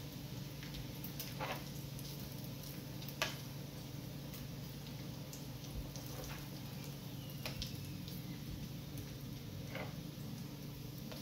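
Bacon strips crackling and popping on an electric griddle over a steady low hum, with scattered clicks of metal tongs on the griddle and plate as the strips are lifted off; one sharp click comes about three seconds in.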